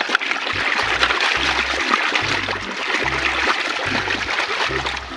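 Running water splashing steadily as a mud-covered toy is rinsed clean.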